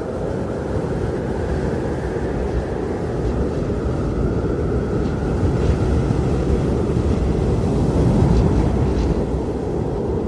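Blizzard wind blowing in a low, rushing roar with a faint whistling tone above it, gusting louder towards the later part.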